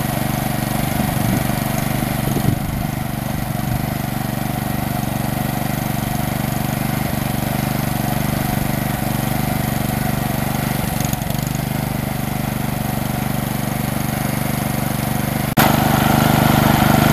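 Small gasoline engine, like a lawn-mower engine, running steadily as it drives a gold-prospecting centrifuge that is processing dirt and water. The sound jumps abruptly louder near the end.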